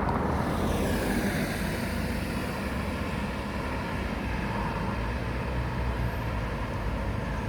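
Road traffic going by: a steady low rumble and tyre hiss, with one vehicle passing in the first second or two, its sound falling in pitch as it goes.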